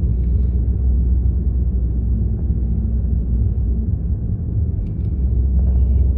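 Steady low road and engine rumble heard from inside the cabin of a car cruising at speed.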